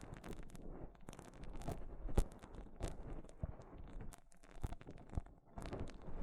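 Close-miked ASMR trigger sounds: irregular crackling and rubbing against the microphone, broken by many small sharp taps and clicks, with a short lull about four and a half seconds in.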